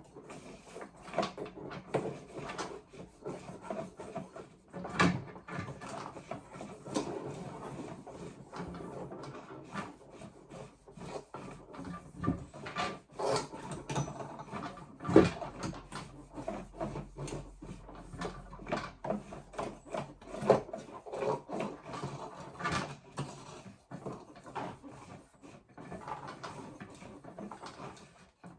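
Irregular knocks, clicks and rubbing of hand work with tools and materials, with a few sharper knocks about five, fifteen and twenty seconds in.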